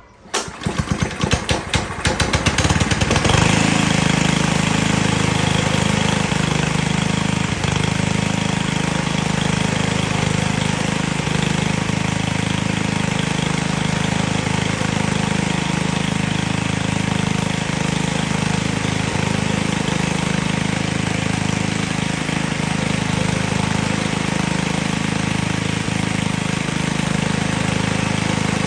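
Cub Cadet WST 100 wheeled string trimmer's four-stroke engine being pull-started, catching after about three seconds of cranking, then running steadily with a regular rise and fall about every two seconds. It is running with a gasoline-soaked air filter, which the owner takes to make it run extra rich and load up.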